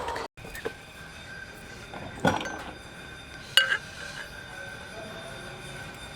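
Metal pipe fittings and tools clinking and knocking during plumbing assembly: a knock about two seconds in and a sharp ringing clink about three and a half seconds in, over a faint steady hum.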